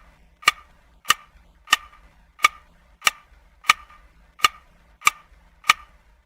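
A series of sharp, evenly spaced ticks, about one every 0.6 seconds, ten or so in all, with quiet between them.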